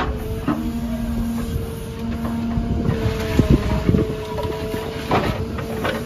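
Backhoe loader's diesel engine running under load with a steady hydraulic whine as the backhoe boom and bucket are worked, the whine dropping in pitch now and then. A few metallic clunks from the arm come in the middle and again near the end.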